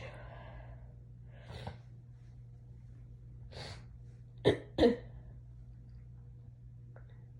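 Stifled sneezes from an itchy, irritated nose: a couple of breaths drawn in, then two quick sneezes a fraction of a second apart about halfway through.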